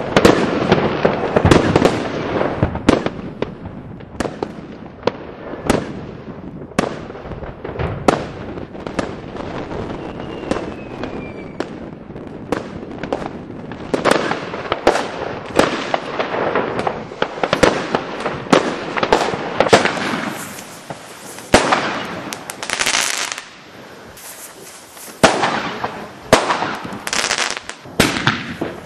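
Many fireworks and firecrackers going off: a continuing run of sharp bangs and crackling, densest in the first few seconds, with a short falling whistle about ten seconds in.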